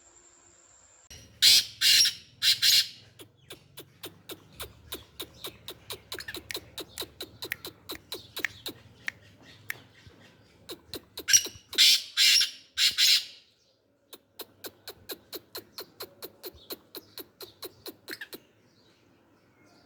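Black francolin calling: two bouts of loud, harsh, grating calls, three near the start and four more about halfway through. Between and after the bouts runs a fast series of sharp ticks, about four a second.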